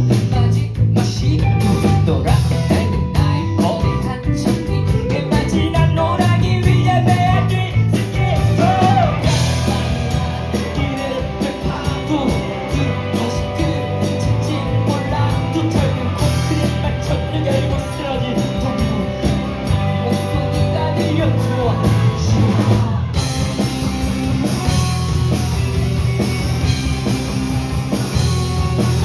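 Live rock band playing: drum kit, electric guitars and bass, with a lead vocal singing over them.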